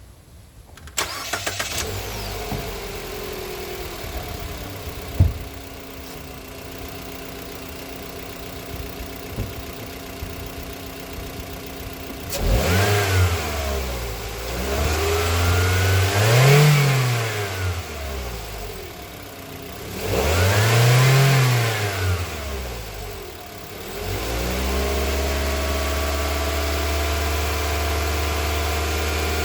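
Mitsubishi Xpander's 1.5-litre four-cylinder petrol engine starts about a second in and runs steadily, now that a new battery is fitted: the flat old battery was the cause of the no-start. About halfway through it is revved twice, rising and falling, and it then settles into a steady faster run.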